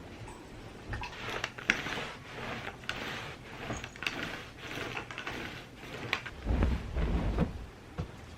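Household handling sounds: a run of light clicks, knocks and rustling, with a few heavier low thumps about six and a half seconds in.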